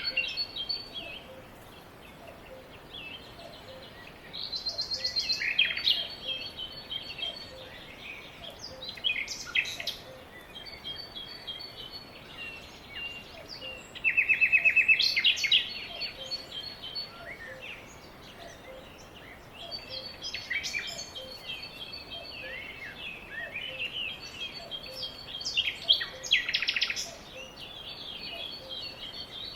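Several songbirds singing and calling: varied chirps and whistled phrases, with a loud rapid trill about halfway through and another loud call near the end, over a faint steady background noise.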